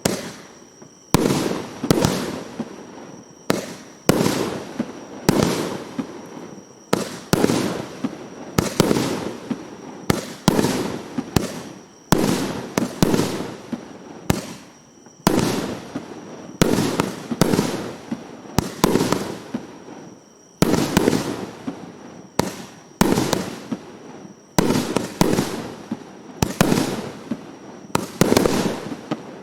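A 1.2-inch, 300-shot fireworks battery (cake) firing shot after shot, about one sharp bang a second, each trailing off in a short rumble.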